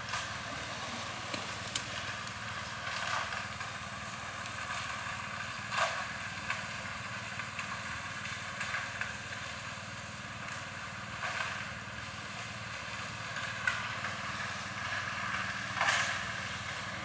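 An engine running steadily, with a few short rushes as wet concrete is tipped from a bucket and slides down a chute into a footing trench.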